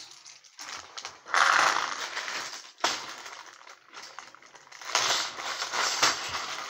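Plastic Lego pieces and their small packaging being handled: crinkling and rustling in two spells, with small plastic clicks and one sharp click in between.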